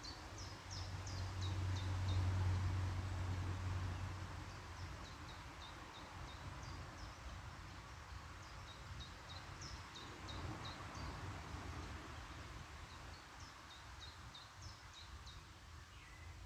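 A small songbird singing quick series of high, short chirps in four bursts, over a steady outdoor hiss. In the first few seconds a low rumble swells up and fades away.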